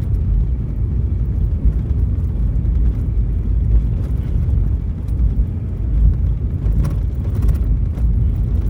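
Road noise heard inside a moving vehicle's cab: a steady low rumble of engine and tyres on a snow-covered road.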